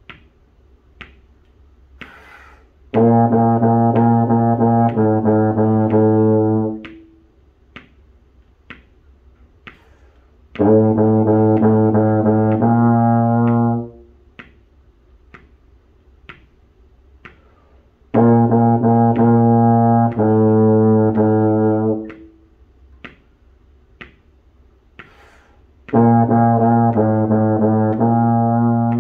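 Three-valve low brass horn playing four short phrases that alternate between B-flat and A in patterns of three, with a gap of a few seconds after each phrase. Sharp clicks keep a steady beat through the gaps.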